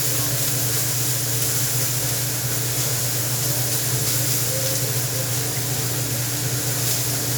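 Food sizzling steadily on a hibachi griddle: an even hiss over a constant low hum.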